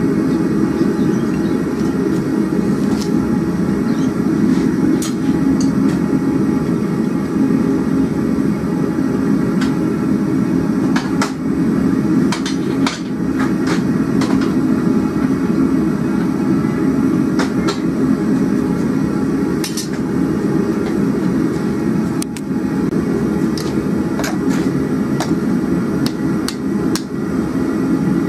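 Propane gas forge burner running with a steady low rush, while a hammer strikes hot steel on the anvil at irregular intervals, forging a square-bar wall hook.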